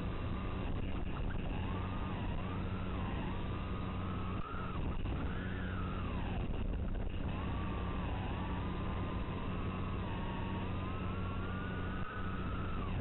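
An FPV quadcopter's brushless motors whine, the pitch gliding up and down with the throttle, heard through the onboard camera's analog audio over a steady electrical hum and hiss. The sound drops out briefly twice.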